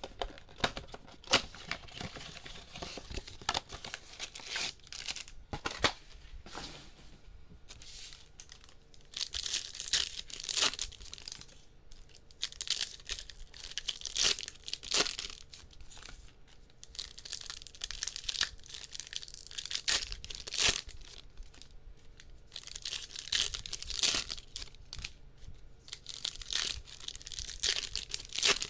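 Trading card packaging being torn open by hand: plastic wrap and foil pack wrappers ripping and crinkling as a blaster box of cards is unpacked. It comes in repeated bursts of tearing every few seconds, with sharp clicks between them.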